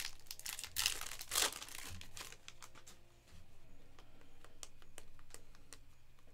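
Foil trading-card pack wrappers crinkling and tearing open, then a scatter of light, sharp clicks as the cards are handled.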